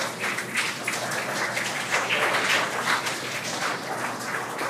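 Crowd applauding in celebration of the confirmed Dragon separation: a dense clatter of many hands clapping that eases off slightly toward the end.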